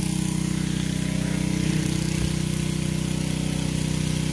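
Portable generator engine running steadily, an even drone with no change in speed.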